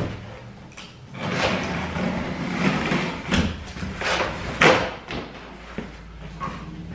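Utility knife cutting through a corrugated cardboard box, heard as a series of rough scraping strokes along the cardboard, the loudest a little past halfway.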